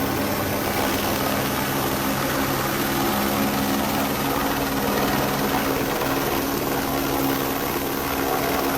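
Helicopter running steadily: a constant low hum of several tones over a dense rushing noise.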